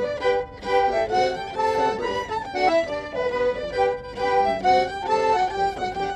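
Live music for a traditional Manx folk dance: a quick dance tune played by a small band of acoustic instruments, its melody moving in short notes over a steady beat.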